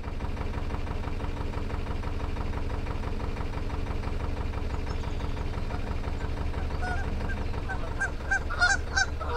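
Narrowboat engine running steadily, and from about seven seconds in Canada geese honking, a run of short repeated calls.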